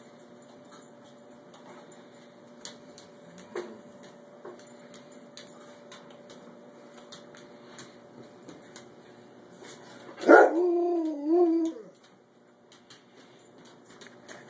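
Husky-type dog giving one loud, wavering howl-like whine about ten seconds in, lasting under two seconds, after a brief faint whine earlier on; the dog is begging for tuna.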